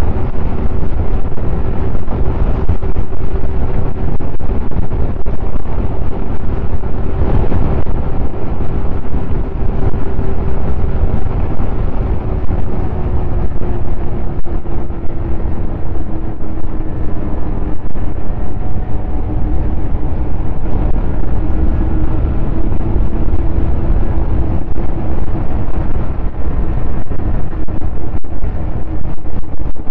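Snowmobile engine running steadily at speed, its pitch easing down a little over the second half, with heavy wind buffeting the microphone.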